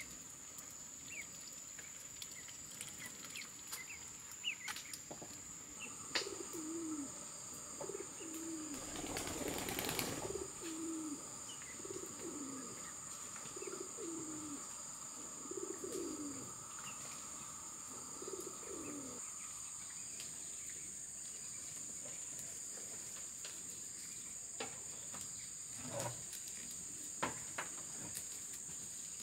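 Rural outdoor ambience: a steady high insect drone throughout, with a run of short, low, repeated cooing bird calls, about one a second, for the middle stretch. A rush of noise lasting about two seconds comes around nine seconds in.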